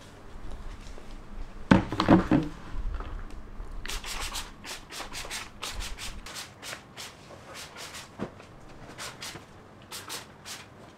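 Handheld spray bottle of Febreze fabric refresher sprayed onto fabric cushions in a long run of short hissing spurts, about two a second, starting about four seconds in. Before that, a loud soft thump and rustle of cushion fabric about two seconds in.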